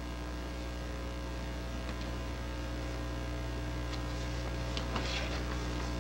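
Steady electrical mains hum in the recording: a low buzz made of several steady tones stacked one above another. A few faint soft rustles come through about four to five seconds in.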